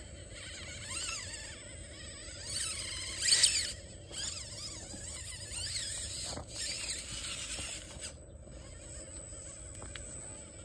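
Micro RC rock crawler's electric motor and gear drive whining in short spurts, the pitch rising and falling with the throttle as it climbs rock. The loudest spurt comes about three seconds in.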